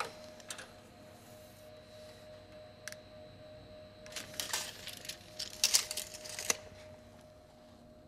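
Retractable steel tape measure clicking and rattling in a few short bursts as its blade is handled and wound back, the biggest cluster about six seconds in, over a faint steady hum.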